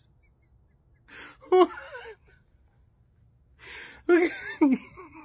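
A man's voice: twice, a sharp breathy gasp runs into a short excited, wordless exclamation with a gliding pitch, about a second in and again near the end.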